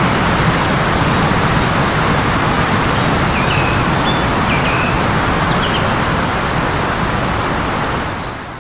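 Heavy blizzard wind blowing in a steady rush, with a few faint bird chirps above it in the middle; the wind fades away near the end.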